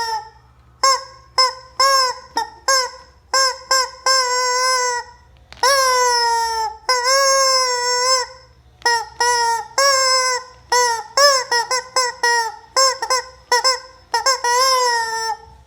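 Rubber chicken squeeze toy squawking over and over: many short squawks, with a few long drawn-out ones lasting about a second each.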